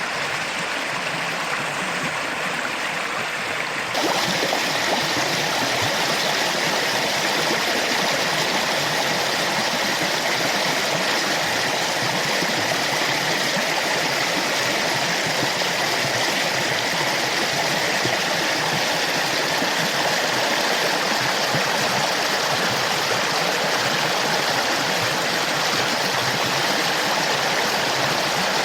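Creek in flood, its high water rushing steadily. About four seconds in it turns suddenly louder and brighter.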